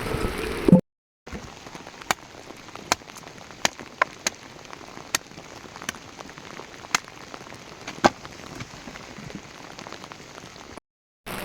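Water dripping or rain falling onto a hard surface, in scattered single drops about once or twice a second over a faint steady hiss.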